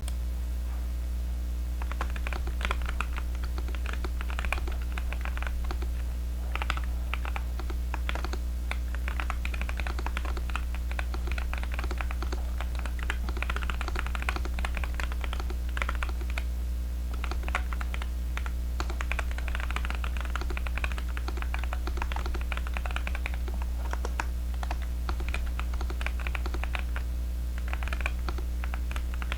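Typing on a Zoom75 custom mechanical keyboard fitted with Kailh Heavy Burnt Orange tactile switches and fully foamed: a continuous run of rapid key clacks that starts about two seconds in. A steady low hum runs underneath.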